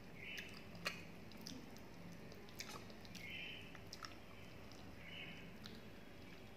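A person chewing and biting into crisp fried food eaten by hand, with soft crunches and sharp little clicks, the sharpest about a second in.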